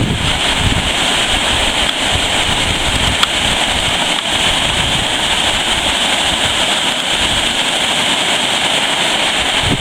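Waterfall on the Wilge River rushing steadily, a constant noise of falling water.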